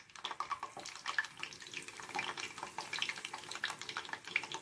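Meat-stuffed zucchini frying in hot vegetable oil in a pan, a steady sizzle dense with small sharp crackles as more zucchini are lowered in on a slotted spoon. The zucchini are being half-fried.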